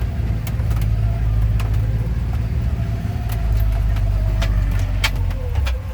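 Vehicle engine and tyres rumbling steadily while driving slowly over wet ground, heard from inside the cab, with scattered sharp taps.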